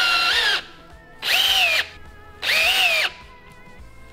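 Cordless drill driving tungsten carbide screw studs into a mud-terrain tyre's tread in three short runs, each under a second. Its whine climbs as it spins up, holds, then drops as each run ends.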